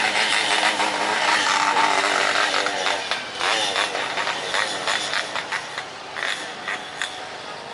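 Jet airliner's engines passing close on landing, loud at first and then fading away over the last few seconds.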